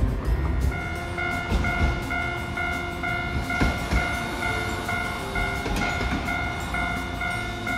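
Level-crossing warning bell ringing in a fast, steady ding-ding pattern, starting under a second in, while a Hiroshima Electric Railway low-floor articulated tram rumbles across the crossing with a few knocks of wheels over rail joints.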